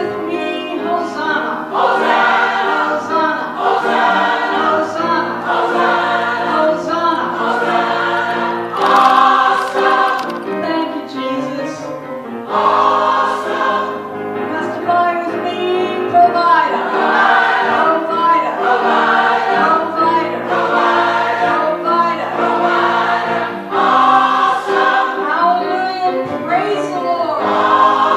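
Mixed gospel choir of men and women singing together in harmony, loud and continuous.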